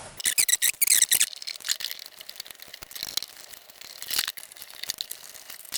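Front bezel of a Rockland 5840A FFT analyzer being pried at with a tool: a quick run of scraping clicks in the first second or so, then scattered clicks and scrapes as the bezel flexes.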